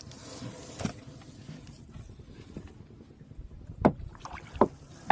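Three sharp knocks on a wooden fishing boat in the second half, about half a second apart, over a low steady background.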